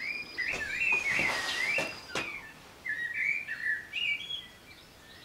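A songbird singing a run of quick warbling, chirping phrases, with a couple of brief clicks in the first two seconds.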